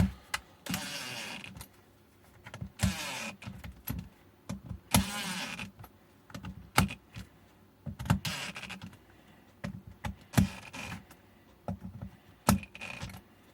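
Small electric screwdriver motor whirring in six short runs of about a second each, driving in the screws that close a battery case. Sharp clicks and knocks of handling come between the runs.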